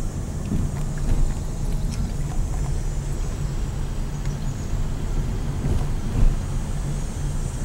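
Car driving: a steady low rumble of engine and tyre noise, with a few faint ticks.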